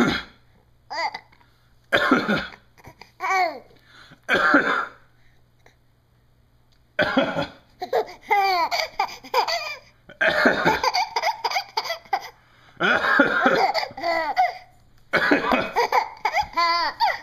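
A man's exaggerated fake coughs, a few short bursts, followed by a young child's repeated fits of giggling laughter that begin about seven seconds in.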